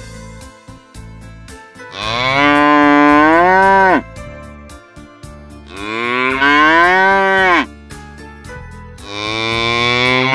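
Cows mooing: three long moos, each about two seconds, rising in pitch and then dropping off at the end. Background music with a steady beat runs under them.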